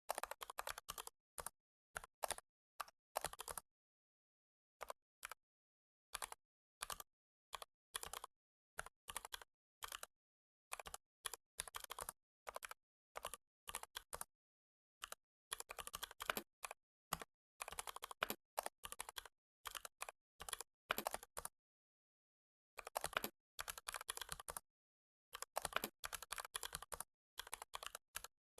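Computer keyboard typing: quick runs of keystroke clicks broken by pauses of a second or so, with dead silence in the pauses.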